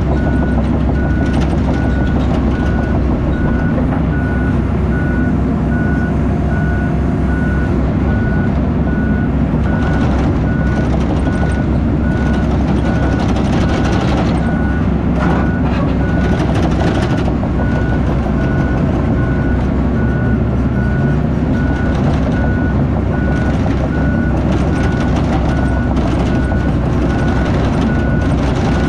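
Recovery dozer's diesel engine running steadily under a backup alarm beeping at an even rhythm as the machine reverses.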